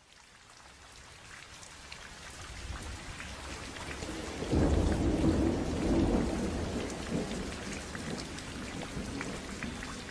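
Rain patter fading in from silence, with a deep roll of thunder beginning about halfway through and slowly dying away. This is a rain-and-thunder ambience at the opening of the background music.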